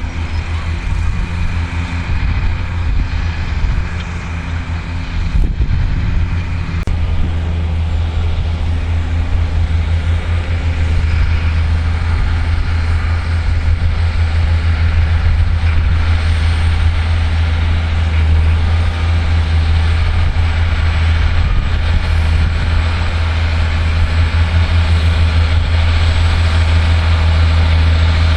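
Massey Ferguson 6490 tractor's diesel engine running steadily under load while ploughing, a deep, even hum that grows louder after about five seconds.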